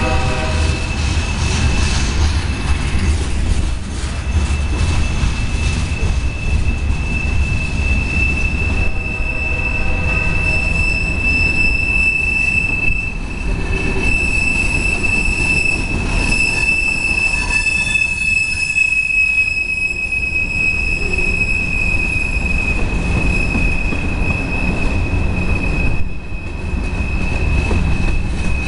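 Freight train of covered hopper cars rolling past close by: a steady heavy rumble of wheels on rail, with a high, steady wheel squeal over it that is loudest about halfway through.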